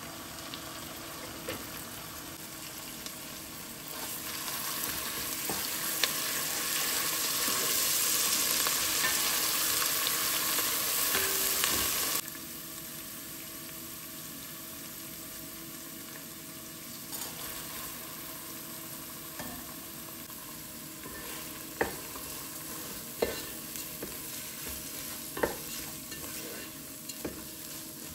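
Tomato paste frying with chopped onion and garlic in oil in a pot, the sizzle swelling louder for several seconds and then cutting off suddenly about twelve seconds in. A quieter steady sizzle follows as red lentils, bulgur and rice fry, with a few sharp clicks near the end as a wooden spoon stirs them.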